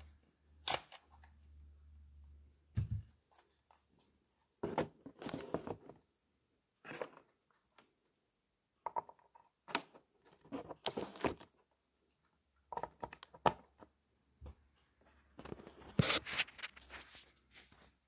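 Scattered clicks, knocks and rustles of hard plastic being handled: a cordless power-tool battery pack and its charger lead being moved about in a plastic tool case. The noises come in irregular clusters.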